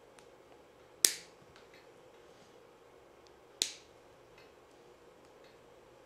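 Side cutters snipping through the blue outer sheath of a network cable: two sharp snaps about two and a half seconds apart, with a few faint handling clicks between.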